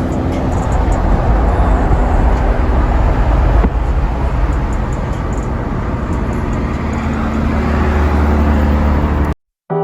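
Car on the move: steady engine and road noise with a deep rumble, cutting off suddenly near the end.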